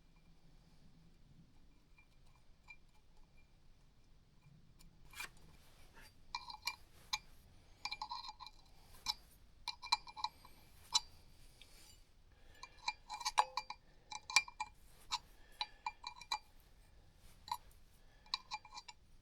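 Scattered metallic clicks and clinks of a hand tool on a new pulley's screws as they are driven in and tightened. The clicks come in short clusters, starting about five seconds in.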